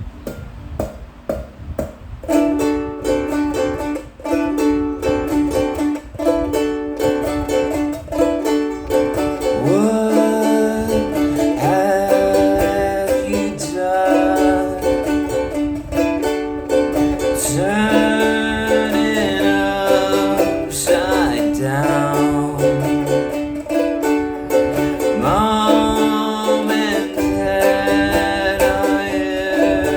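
A plucked string instrument strummed in a steady rhythm, playing a repeating chord pattern that starts about two seconds in.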